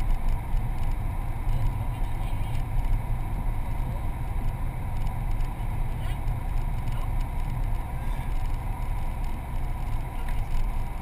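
Steady low rumble of a car's engine and tyre noise, heard from inside the cabin while driving on a paved road.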